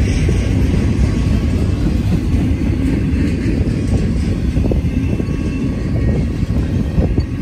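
Double-stack intermodal container train rolling past: a steady rumble of steel wheels on the rails, with a few faint knocks from the cars in the second half.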